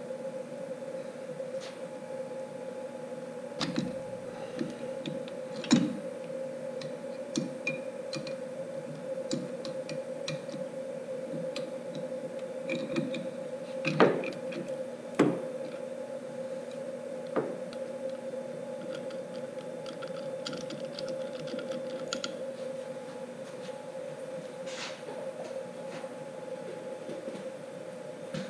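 Router bit change on a CNC: metal wrenches clicking and knocking against the router's collet nut, in scattered taps with a few louder knocks, over a steady hum.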